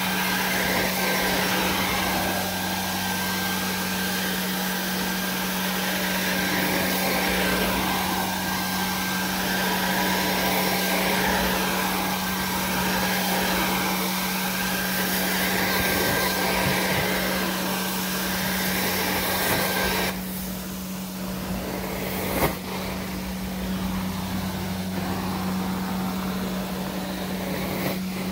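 Carpet-cleaning extractor running steadily, its vacuum pulling air and water through the wand in swells about every two seconds as the wand is worked over the carpet. About 20 seconds in a high thin whistle stops and the sound drops. A sharp knock follows a couple of seconds later.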